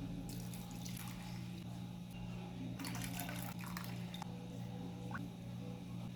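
Liquid being poured into a container, with the splashing louder about three seconds in, over a steady low hum.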